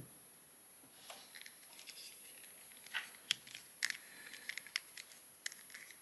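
Faint, scattered small clicks and taps of a plastic articulated action figure being handled and posed, its joints and parts knocking as they are moved.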